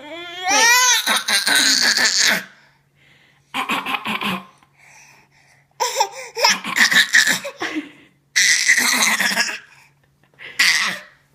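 A baby of about ten months gives a rising squeal, then laughs in about five separate bursts, each a second or two long, with short pauses between.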